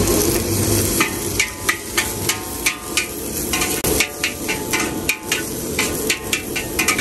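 Metal spatula clanging against a wok while noodles are stir-fried, over a steady frying roar. The strikes start about a second in and come about three a second, each with a short metallic ring.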